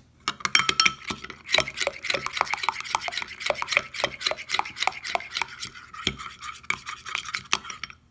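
A metal spoon stirring a wet paste in a glass bowl, making a fast run of clinks and scrapes against the glass. It stops shortly before the end.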